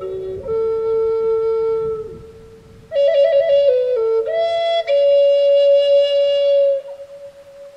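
Native American-style flute (pimak) in G playing a slow improvised melody: one held note that fades out, a short pause, then a quick ornamented phrase that slides up into a long held note, which dies away near the end.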